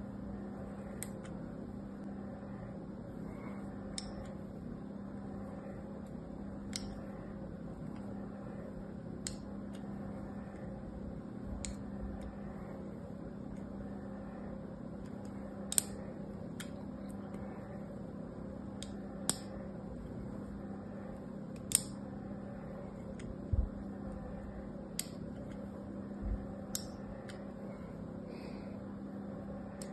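A thin blade scoring lines into a bar of soap, each stroke a short crisp crackle, about a dozen spread every two to three seconds, over a steady low hum.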